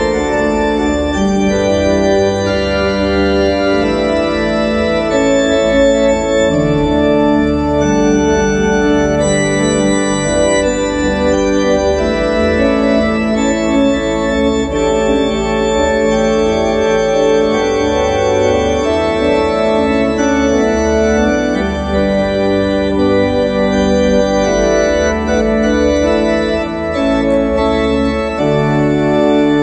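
Two-manual church organ being played: sustained chords that shift every second or so over a continuous pedal bass.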